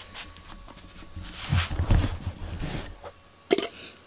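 Handling noise of a camera being picked up and moved: rustling and rubbing against the microphone, then a sharp knock about three and a half seconds in as it is set down.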